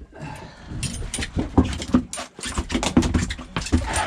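Freshly landed mahi-mahi thrashing on the boat, making rapid, irregular thumps and slaps.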